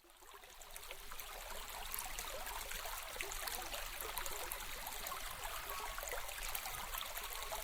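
Mountain stream water flowing and splashing steadily, fading in over the first two seconds.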